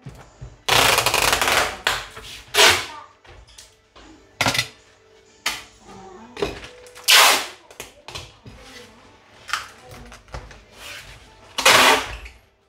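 Packing tape being ripped off a shipping crate in a series of sharp tearing pulls, about eight in all, the first one long and the loudest ones about seven seconds in and near the end.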